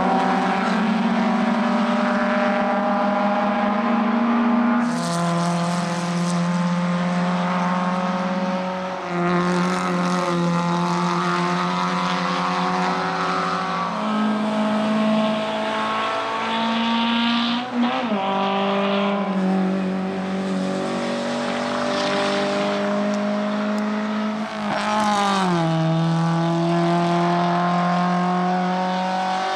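Several 1300 cc touring race cars' small four-cylinder engines running hard under acceleration, with more than one engine heard at once. Their pitch climbs slowly and then drops sharply several times.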